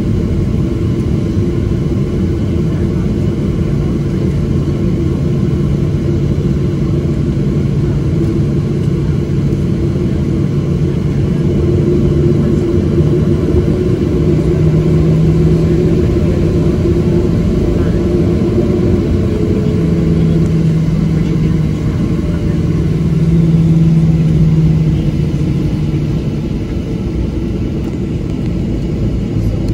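Steady cabin rumble of a Boeing 737-700 taxiing, its CFM56-7B engines at idle thrust, with a low hum that rises slightly in pitch and loudness twice, around the middle and a little later.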